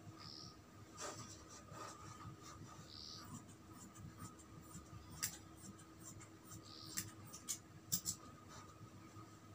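Large fabric scissors snipping through a strip of cotton cloth, with soft rustling of the fabric as it is handled. A few sharp clicks stand out in the second half.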